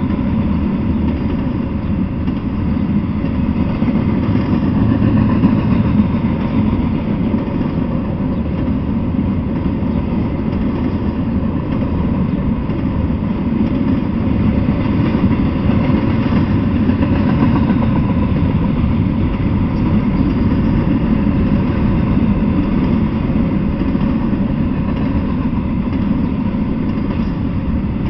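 Freight train passing close by: a steady, loud rumble of railcars rolling over the rails.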